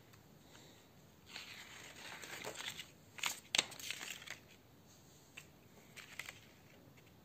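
A folded strip of stiff printed paper being pulled open and handled: rustling from about a second in, with two sharp snaps of the paper near the middle, then a few light taps.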